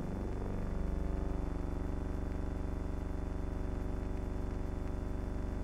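Steady low hum with many overtones and a thin high whine above it, unchanging throughout.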